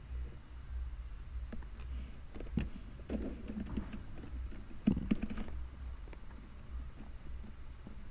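Small hollow plastic toys handled close to the microphone: a cluster of light clicks and knocks about two to five and a half seconds in, the sharpest near five seconds, over a low steady hum.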